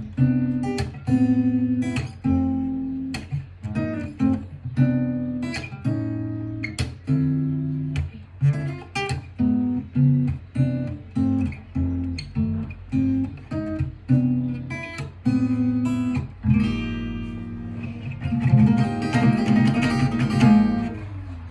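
Acoustic guitar played solo: a slow melody of plucked notes and arpeggiated chords, turning to a denser strummed passage about three-quarters of the way through.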